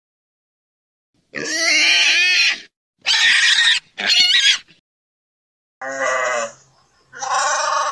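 Pig squealing three times in quick succession, shrill and loud. Two shorter calls from a second animal follow near the end.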